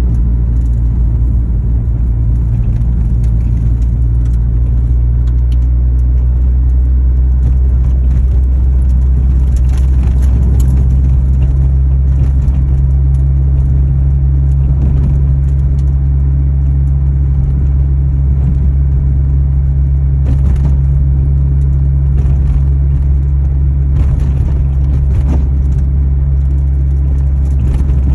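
Honda Civic Type R FD2's K20A four-cylinder running steadily at idle through a Largus aftermarket exhaust, a loud, even low drone with a few faint clicks or rattles here and there. This is the abnormal noise from the Largus exhaust.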